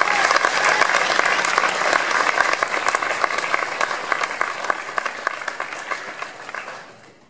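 Audience applause, many people clapping at once, tapering off near the end.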